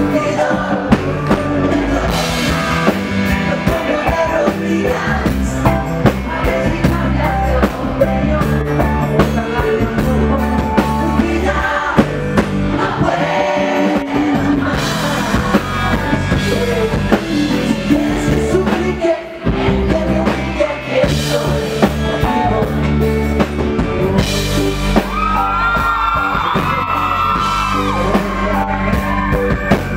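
Live pop-rock band playing with drums and keyboard while a male lead singer sings into a microphone.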